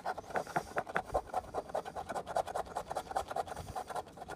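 Rapid, steady scratching of a scratch-off lottery ticket, many quick short strokes a second as its coating is rubbed off.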